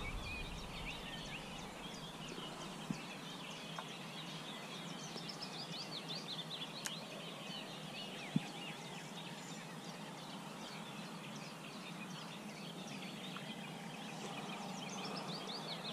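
Several birds singing, a continuous mix of short chirps and trills, with a few isolated faint clicks.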